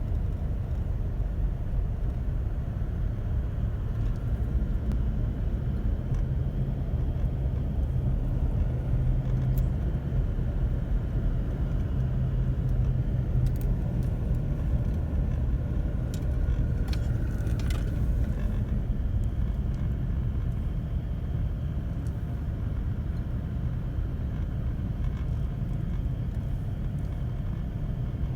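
Car being driven at steady speed: continuous engine and road rumble, with a few faint clicks about halfway through.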